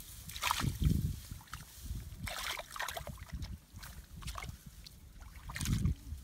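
Muddy water sloshing and splashing in irregular bursts as hands grope through a shallow water-filled hole for fish.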